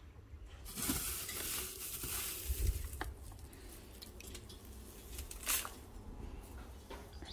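Dry straw bedding rustling and crunching as it is handled, with a few sharp clicks and knocks scattered through. The rustling is heaviest in the first few seconds.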